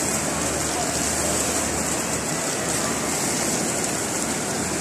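Decorative indoor fountain: water jets and small cascades splashing into a stepped channel, a steady even rush of water.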